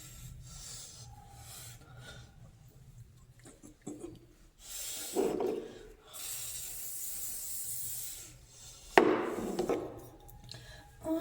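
Hair being brushed and handled close to the microphone: rubbing and scratching noises, with a steady hiss lasting about two and a half seconds in the middle and a couple of louder rustles.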